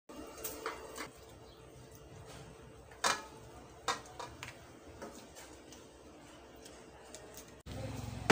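A serving utensil clinking and scraping against an aluminium wok as cooked crab and shrimp are scooped out, a few scattered knocks with the loudest about three seconds in. Near the end a steady low hum takes over.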